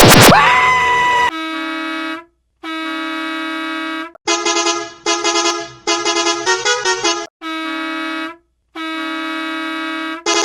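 Bus air horn sound effect: a steady horn blasting about a second or more at a time with short gaps, and in the middle a quick run of shorter honks whose pitch shifts. The loudest part is the first second, a heavily distorted version of the horn whose tone slides upward before cutting off.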